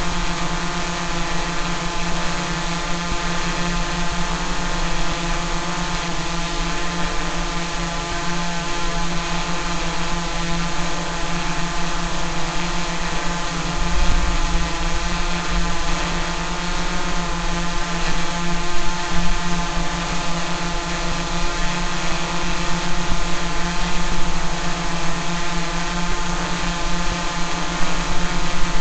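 Quadcopter drone's propellers and motors buzzing steadily at hover, a constant hum that holds one pitch.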